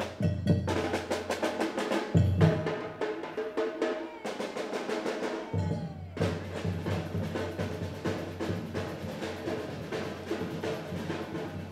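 Percussion music: a drum group playing a fast, busy rhythm on snare and bass drums, with a steady low drone underneath that breaks off briefly twice.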